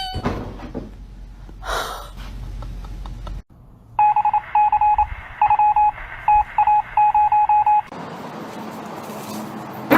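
Electronic beeping: a run of short beeps at one steady pitch in uneven clusters, starting about four seconds in and stopping a little before the end.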